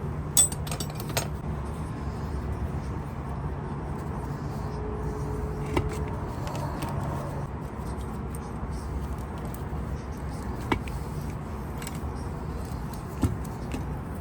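A steady low rumble with about five short, sharp clicks or clinks scattered through it, the loudest near the start.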